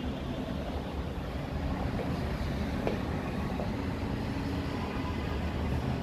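Steady low rumble of urban background noise heard outdoors high above a city, with one faint tick about halfway through.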